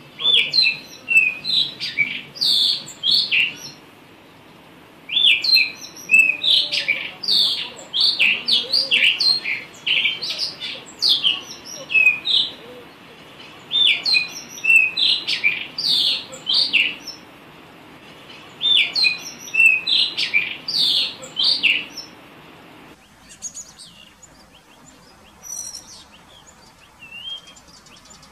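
Blue rock thrush singing: bouts of quick, varied whistled phrases, each a few seconds long with short pauses between. After about 23 seconds only fainter, scattered notes are left.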